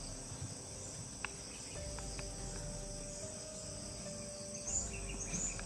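Steady chorus of crickets, a continuous high-pitched trill, with a few faint ticks over it.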